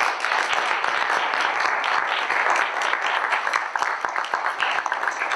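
Audience applauding: many hands clapping in a dense patter that starts to thin near the end.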